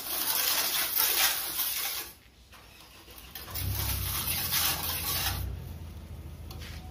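Float or trowel scraping and rubbing along fresh cement plaster at a wall edge, in two spells with a short pause between them. A low rumble sits under the second spell.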